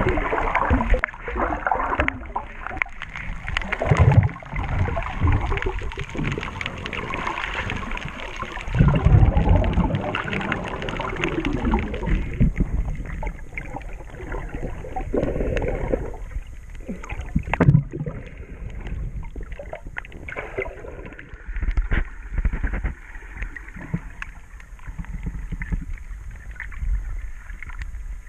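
Muffled underwater sound from a camera held below the surface while snorkelling: water sloshing and bubbling, with irregular low thumps. It is busier for the first twelve seconds or so, then quieter.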